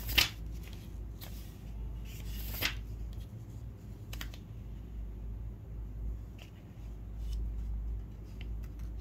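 Paper rustling and light clicks and knocks as textbook pages are leafed through, with one sharp knock just after the start, over a steady low hum.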